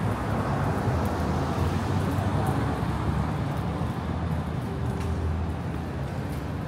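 City street traffic: a steady rumble of vehicle engines and tyres, with a low engine hum underneath.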